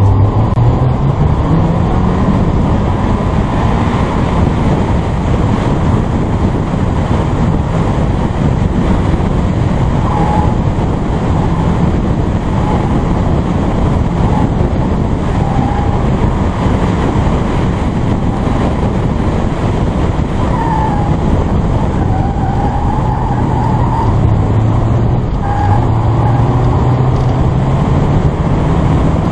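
A car being driven hard through an autocross cone course, heard from inside the car: the engine rises and falls with the throttle over steady road and wind noise. The tyres squeal briefly in several corners.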